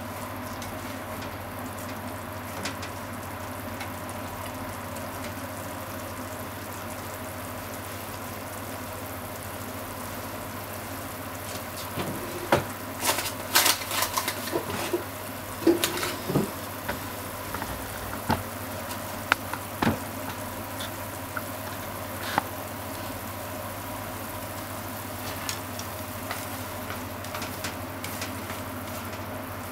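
Ground chicken simmering and sizzling in a sauce in a frying pan, a steady bubbling fry. Through the middle comes a run of sharp clicks and taps from wooden chopsticks against the pan.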